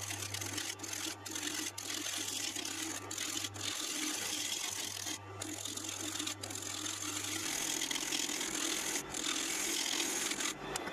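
Gouge cutting into a large wooden blank spinning on a wood lathe: a continuous rough shearing hiss of shavings coming off, with short breaks every second or so as the tool lifts, over the steady hum of the lathe motor.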